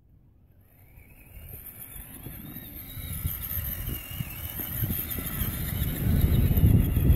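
Traxxas Summit RC truck's electric motor and geared drivetrain whining as it drives through snow, growing steadily louder as it nears, with the tires crunching in the snow, heaviest near the end.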